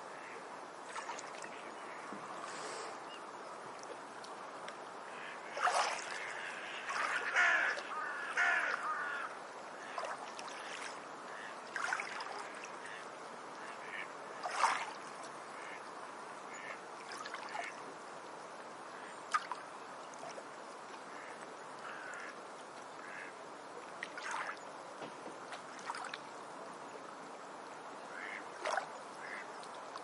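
Beach ambience: a steady wash of water under bird calls now and then, with a burst of several calls about six to nine seconds in and single calls scattered after.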